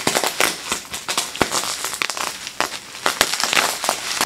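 Plastic bubble wrap crinkling and crackling as it is pulled and unwrapped by hand, with many quick irregular snaps.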